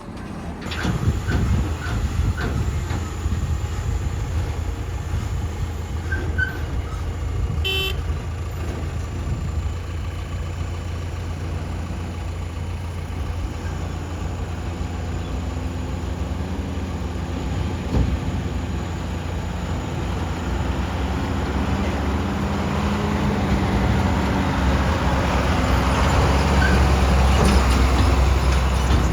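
Heavy diesel engine running steadily, getting louder and working harder over the last several seconds. A brief high beep sounds about 8 seconds in.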